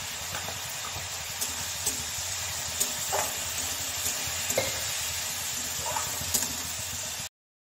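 Chopped vegetables frying in oil in a metal kadai, with a steady sizzle, while a spatula stirs them and scrapes against the pan every second or so. The sound cuts out abruptly near the end.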